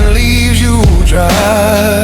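Dark blues-rock music: a lead melody bends and wavers over a steady low bass.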